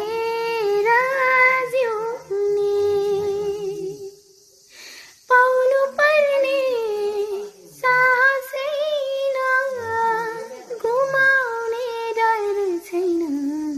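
A young girl singing a Nepali love song alone, without accompaniment, in long held notes; she breaks off for about a second around four seconds in, then takes up the line again.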